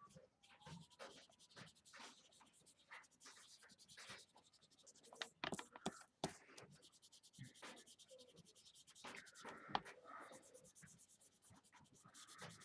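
Faint scratching and rubbing as an ink applicator is dabbed on an ink pad and rubbed along the edges of a cardstock panel, with the card shifting on a cutting mat. Scattered soft ticks, a little louder about five and nine seconds in.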